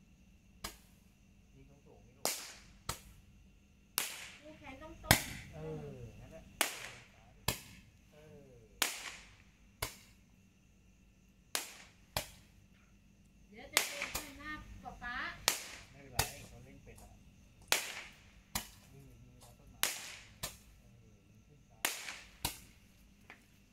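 Handheld multi-shot firework on a stick, a Roman candle-style tube, firing shot after shot: sharp pops roughly once a second at an uneven pace, each trailing off briefly.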